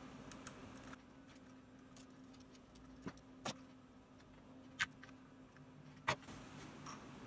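A handful of short, sharp clicks and taps, spread out and faint, from handling a soldering iron and wires inside a wah pedal's plastic enclosure, over a steady low hum.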